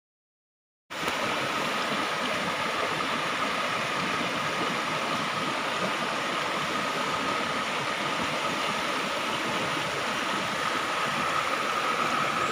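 A shallow rocky stream running over stones: a steady rush of flowing water that comes in suddenly about a second in, after silence.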